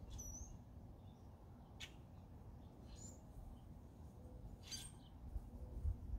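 A few faint, short, high bird chirps, about four spread over several seconds, over a steady low rumble.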